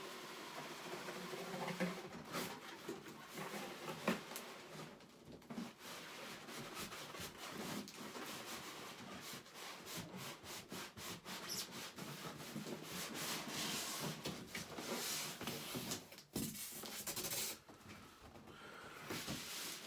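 A large cardboard box and its packaging being handled, with irregular rubbing and scraping and scattered light knocks.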